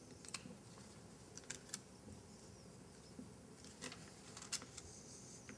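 Faint handling noises from papers being shuffled: a few scattered light clicks and ticks, with a soft paper rustle near the end.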